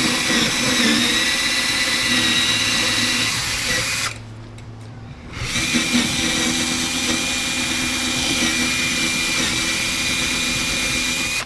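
A household power drill turns a 1-inch hole saw cutting through a thick wooden desktop, running with a steady whine. It stops about four seconds in, starts again a second and a half later, and runs until it stops at the end.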